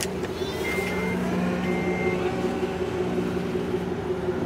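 SUV power liftgate closing: two short high warning beeps about a second apart, over the steady hum of the motor lowering the hatch.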